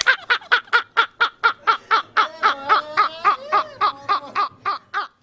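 A person laughing in a long run of quick, rhythmic 'ha-ha' pulses, about five a second, with another voice overlapping in the middle. The laughter fades toward the end.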